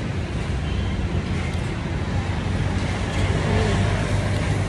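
Steady road traffic: a continuous low rumble of passing vehicles.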